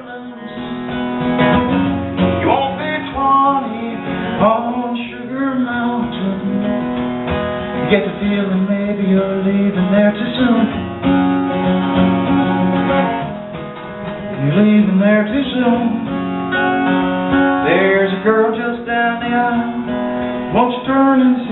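Acoustic guitar strummed and picked, with a man singing into a microphone over it in a live solo performance.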